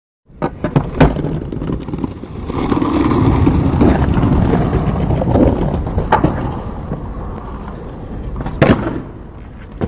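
Skateboard wheels rolling on rough concrete, growing louder as the skater approaches and then fading, with a few clacks of the board in the first second. A sharp clack about six seconds in and a louder crack of the board landing near the end, around an ollie off the ledge.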